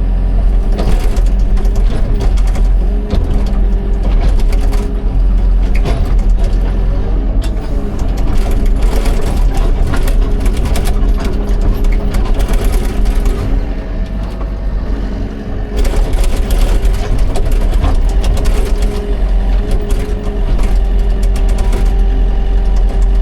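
Excavator's diesel engine running steadily under load, with scattered knocks and clatter from the machine at work and brief easings of the load.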